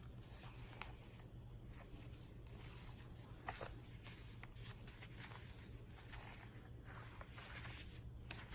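Pages of a handmade paper journal being turned and handled: faint soft rustling with a few light taps, over a low steady hum.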